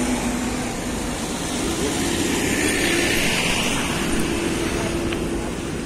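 Motorcycle engine running as the bike passes on a rough road, over steady road noise.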